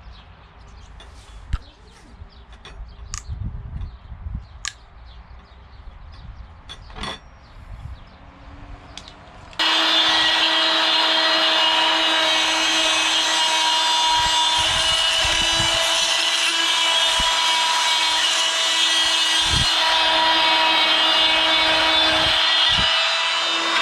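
Light handling clicks and knocks, then about ten seconds in a Vonroc oscillating multi-tool switches on suddenly and runs with a steady buzz, its pad and blade worked against weathered wood.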